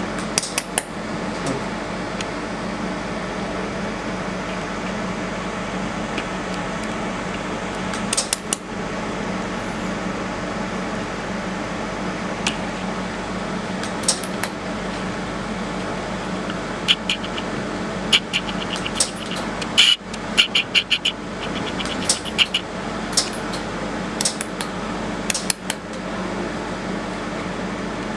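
Steady hum of a fiber laser welding machine's cooling fan. Sharp clicks and ticks come in scattered clusters, thickest in the second half.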